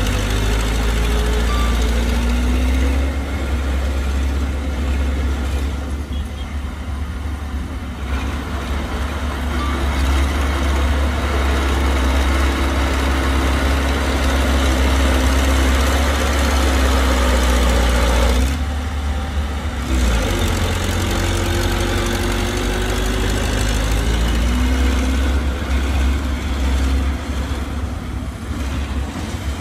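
Heavy earthmoving machinery's diesel engine running under load, its pitch rising and falling slowly as it works. It drops away briefly about eighteen seconds in, then picks up again.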